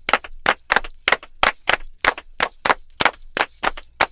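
A steady rhythm of sharp percussive hits, about four a second, each ringing briefly.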